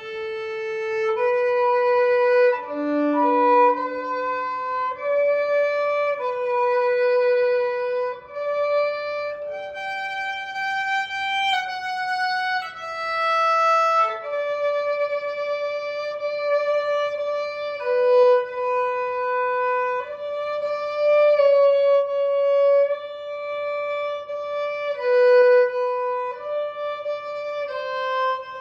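Background music: a slow violin melody, one line of sustained notes each held for about a second or so.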